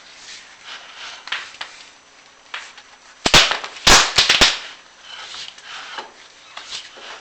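Inspection camera and its cable scraping and knocking against clay flue tile, with a quick run of sharp, loud clacks about three to four and a half seconds in and lighter scrapes and ticks around it.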